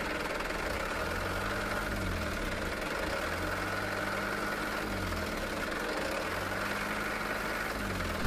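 Truck engine running steadily, its pitch rising and falling three times as it is revved up and eased off.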